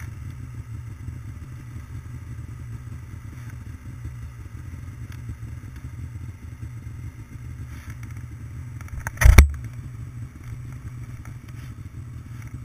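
Snowmobile engines idling with a steady low hum. About nine seconds in comes a single sharp thump, the loudest sound.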